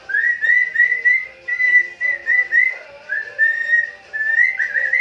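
Amazon parrot whistling a run of clear notes at about one pitch, many with a short upward slide at the start, with a couple of longer held notes in the second half.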